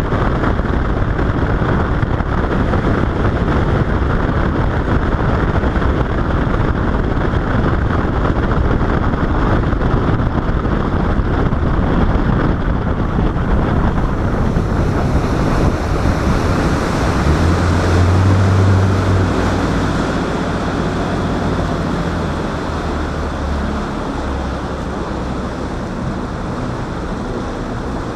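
Boat under way: its engine running under heavy wind buffeting on the microphone and water rushing past the hull. A low, steady engine hum comes forward about two-thirds of the way through, then the whole sound eases a little.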